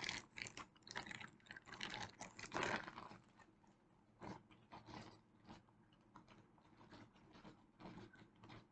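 Handling noise: a quick string of small crinkles and clicks, as of toys in small plastic bags being moved about, busiest for the first three seconds and then sparse and faint.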